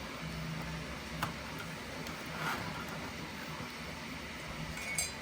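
Quiet room tone: a steady low hum of a fan or air conditioner, with a single faint click about a second in and a brief small sound near the end.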